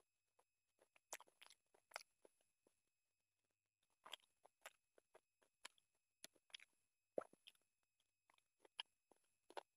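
Faint eating sounds from hand-eating rice and chicken curry: irregular chewing clicks and lip smacks, mixed with fingers kneading rice and curry on the plate, with a short pause about three seconds in.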